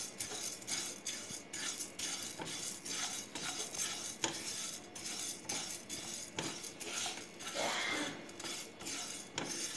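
Whole coriander, cumin and fennel seeds being stirred with a spatula as they dry-roast in a nonstick pan: a dry rustling scrape of seeds on the pan with each stroke, about twice a second.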